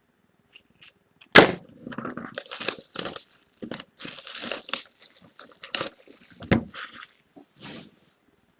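Plastic wrap and card packaging being torn and crinkled open by hand, with a sharp snap about a second and a half in and a few clicks later.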